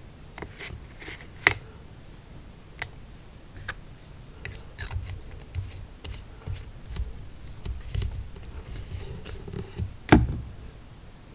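Light clicks and taps of small paint bottles and tools being handled, with a sharper click about a second and a half in and a louder knock near the end.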